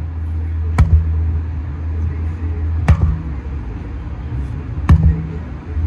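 Sledgehammer strikes landing about every two seconds, three sharp impacts in all, over hip-hop music with a deep steady bass.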